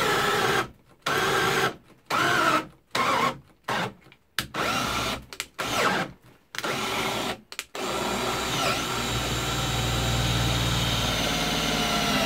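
Einhell TE-CD 18/40 cordless drill boring into softwood with a 16 mm self-feeding spade bit. It runs in about eight short spurts that keep stopping, then runs on steadily for a few seconds near the end before spinning down. Its battery is down to its last bar and it lacks the power for this bit.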